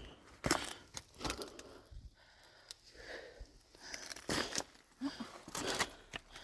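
Irregular rustling and crunching, with scattered short crackles and clicks.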